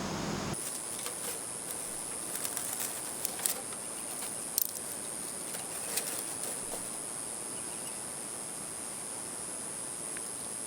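Steady high-pitched buzzing of insects, with a few sharp clicks or snaps scattered through the first several seconds.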